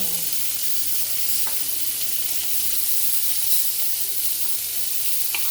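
Chicken thighs sizzling on an indoor grill: a steady, even hiss of frying, with a couple of faint clicks.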